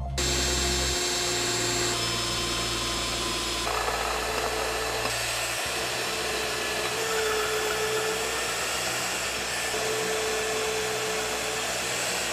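Evolution magnetic drill boring through a thick steel bracket plate: the steady run of the drill motor with the grinding, chip-cutting noise of the bit in steel and a whine that comes and goes.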